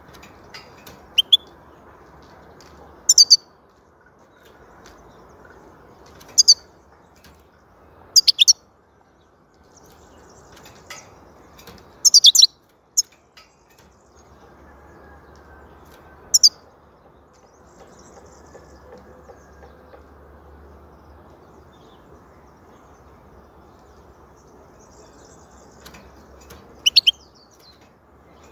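European goldfinch calling: short, sharp high chirps, single or in quick pairs, every few seconds, over a steady low background hiss.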